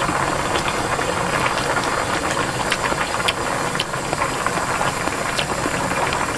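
Pot of budae-jjigae (Korean army stew with ramyeon noodles and sausage) boiling hard: a steady bubbling hiss with scattered small pops and clicks.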